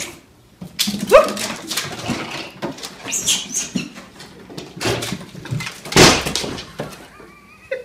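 A pet gives one rising yelp about a second in, among scattered knocks and scrabbling. There is a loud thump about six seconds in.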